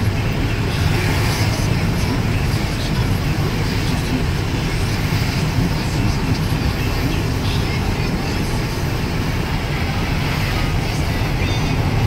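Steady road and engine rumble heard inside a car's cabin while driving on a snow-covered highway, with the hiss of tyres on snow and slush.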